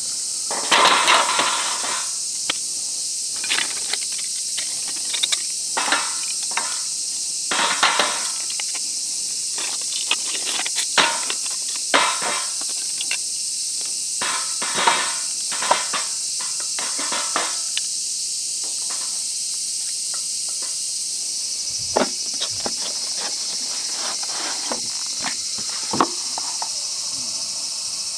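Split hardwood sticks being set and stacked on an iron fire stand, knocking and clattering in a quick run of short bursts that thins out after about seventeen seconds, then two single knocks. A steady high insect chorus is underneath.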